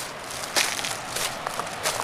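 Footsteps crunching through dry leaf litter and twigs, a few steps about half a second apart, over a steady rush of river rapids.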